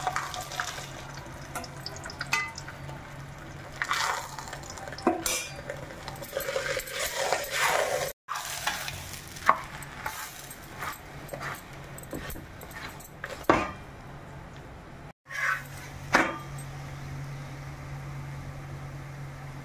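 Chapati cooking on a hot, oiled tawa griddle: a faint sizzle with a metal spatula scraping and pressing the flatbread against the pan again and again, over a steady low hum. The sound cuts out briefly twice, a little past a third of the way in and again about three quarters of the way through.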